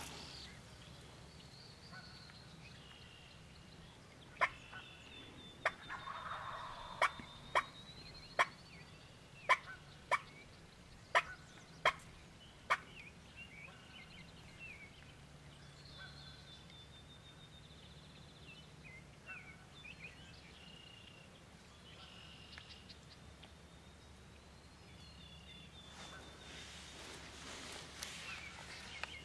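Wild turkey calling: a run of about ten short, sharp calls, roughly one a second, in the first half.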